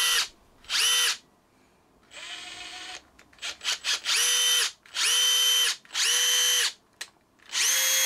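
Makita 18V cordless impact driver running freely, with no load and no hammering, in a series of short trigger pulls. Each burst is a high motor whine that winds up and down, with a brief quieter sound and a few clicks about halfway through. This is a test run of the freshly reassembled driver.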